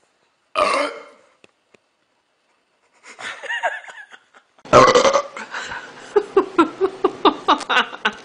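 A baby's single loud burp about half a second in, then from about five seconds in laughter in quick repeated bursts.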